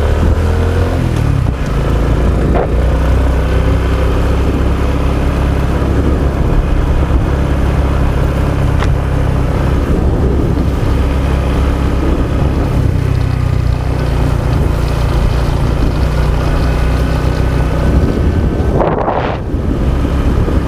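Honda XRM 125 DS motorcycle's fuel-injected single-cylinder four-stroke engine running under way, its note shifting several times as the bike speeds up and slows, over a strong low rumble.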